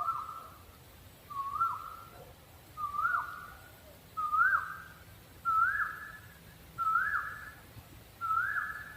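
A small owl calling: a series of seven whistled notes, one about every second and a half. Each note sweeps sharply up and then holds, and the pitch creeps slightly higher through the series.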